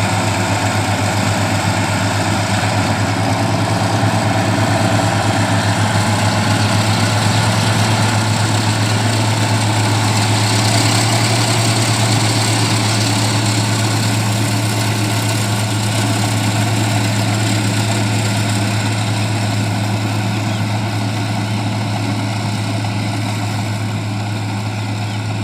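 Kubota combine harvester's diesel engine running steadily at a loud, even drone, with the machinery's clatter and rush over it, easing off a little near the end.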